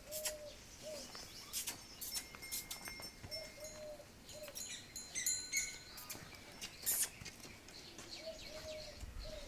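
Pigeons cooing in three short phrases, with small birds chirping and a few light clicks and knocks.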